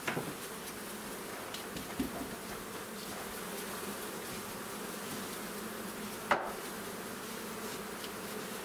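Steady buzzing of a honeybee colony in an open hive, with a few sharp wooden knocks as hive frames are handled, the loudest a little after six seconds in.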